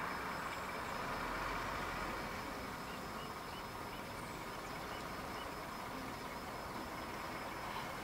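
Outdoor ambience of distant road traffic, a steady hiss of passing vehicles that eases slightly over the first few seconds. A faint run of short chirps comes in the middle.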